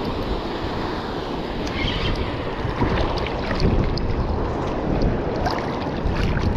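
Wind buffeting the microphone over the wash of surf and shallow water, a steady rumbling noise with a few faint ticks.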